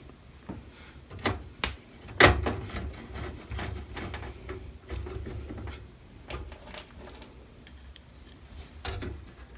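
Screws being driven to fasten a motherboard into a PC case: scattered small clicks and scraping of metal and tools, with one sharp knock a little over two seconds in.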